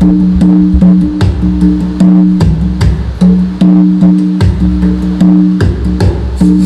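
Instrumental music with guitar and drums, played loud through full-range column speakers driven by a MECHMAN PRO X750 Class H power amplifier set at half volume for a sound check. Held low bass notes sit under a steady beat of about two to three hits a second.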